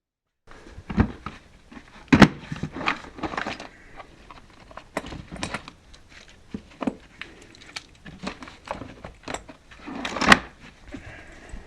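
Irregular clicks, knocks and light rattling of hands handling tools and metal parts during repair work, with the sharpest knocks about two seconds in and again near the end.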